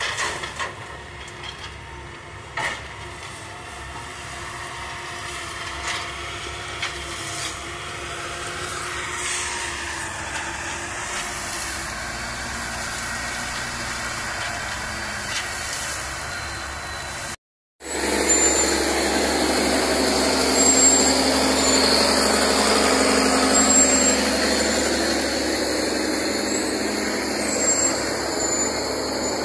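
Heavy diesel cane-hauling trucks running under load, with a few sharp knocks in the first seconds. The sound cuts out for a moment past the middle, then comes back as louder, steadier truck engine noise.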